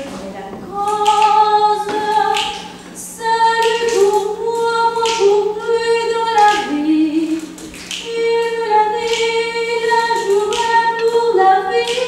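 A woman singing solo without accompaniment, in long held notes, with a faint steady low hum underneath.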